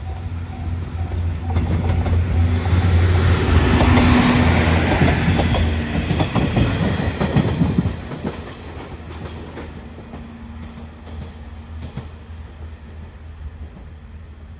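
Train passing a level crossing at speed: a rising rush and rumble that peaks about four seconds in. The wheels clatter rapidly over the rail joints, and the sound falls away sharply about eight seconds in to a low fading rumble. At the start an evenly repeating ding of the crossing alarm is heard before the train drowns it.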